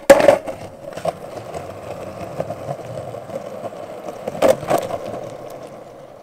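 A longboard landing on concrete with a loud clack, then its wheels rolling over the pavement in a steady rumble, with two sharp clacks about four and a half seconds in; the rolling fades toward the end.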